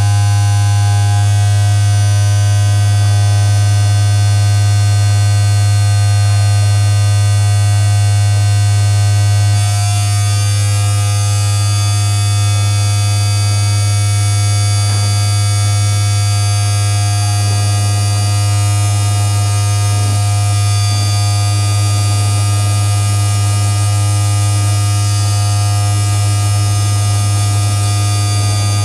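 Loud, steady electronic drone from a tabletop rig of patch-cabled electronics and effects pedals: a strong low hum under a dense layer of sustained buzzing tones. Its texture shifts and it drops slightly in level about ten seconds in.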